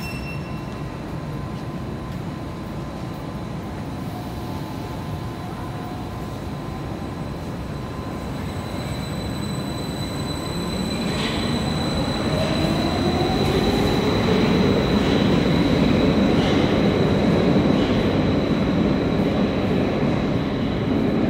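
Stadler metro train pulling out of the station and accelerating away: its motor whine rises in pitch as the running noise builds to a steady, louder rumble, with occasional clicks from the wheels.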